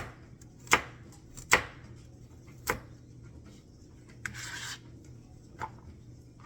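Knife chopping on a cutting board: five separate, unhurried chops, with a brief scrape about four seconds in.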